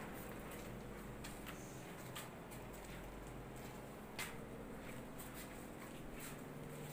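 Faint background hum with scattered light clicks and taps, one sharper click about four seconds in.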